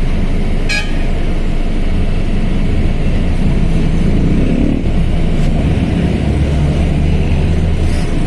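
Mercedes-Benz OF-1721L bus's diesel engine running with a steady low drone, and a brief sharp click about a second in.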